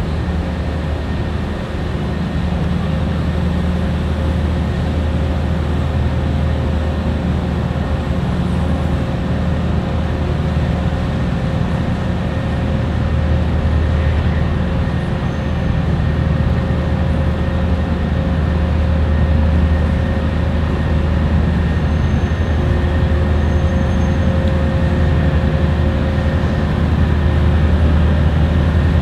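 Marine diesel engines of a tugboat and a small cargo ship running steadily under way: a deep, continuous rumble with a steady hum above it, a little louder near the end.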